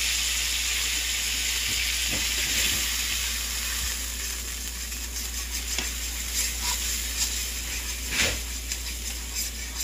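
Soy sauce and oil sizzling in a hot nonstick frying pan while powdered seasoning is stirred in, with light scrapes and clicks of the utensil against the pan. The sizzle eases a little partway through, and there is a louder knock on the pan near the end.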